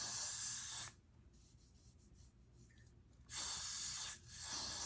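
A spray hissing in short bursts about a second long, three of them, each starting and stopping sharply.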